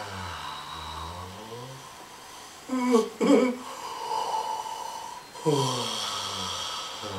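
Vocalized yawns by a person: a long voiced sigh sliding down in pitch, a short loud gasping intake of breath about three seconds in, then a second falling yawn starting near the end.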